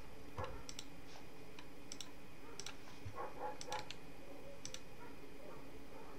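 Computer mouse buttons clicking: a handful of sharp double clicks at irregular intervals, over a faint steady hum.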